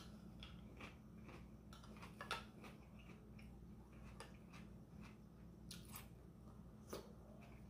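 Faint close-up eating sounds of shrimp ceviche being eaten with a spoon: chewing and wet mouth clicks, with a few sharper clicks, the loudest about two seconds in and again near the end.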